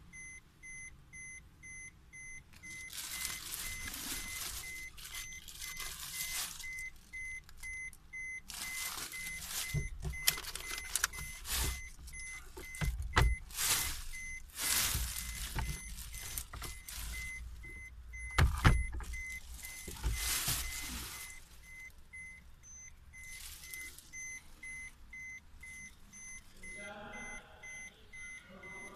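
A Suzuki Vitara's interior warning chime beeping over and over at an even pace with a high tone. Bursts of rustling and handling noise come and go over it.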